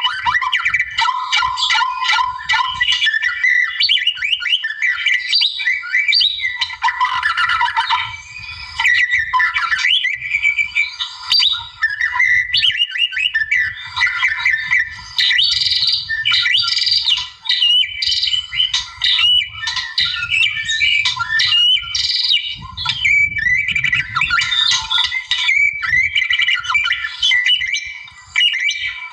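White-rumped shama singing a loud, nearly unbroken song of rapidly changing whistled phrases, glides and chattering notes.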